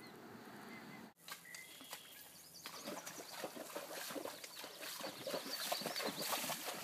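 Tennessee Walking Horse's hooves splashing as it walks through a shallow stream: irregular splashes that grow louder from about three seconds in.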